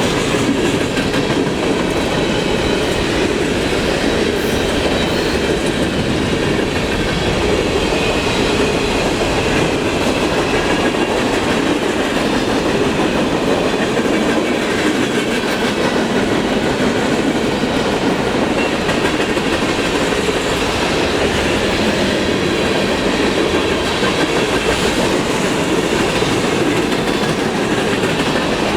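Freight train cars rolling steadily past, a continuous rumble with the clatter of wheels over the rails.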